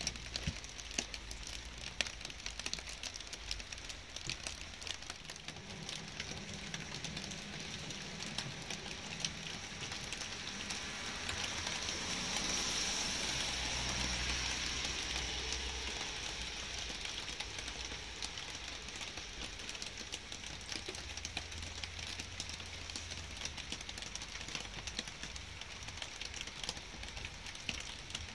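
Light rain falling, with many small drops ticking close by over a steady hiss. The hiss swells about halfway through and fades again.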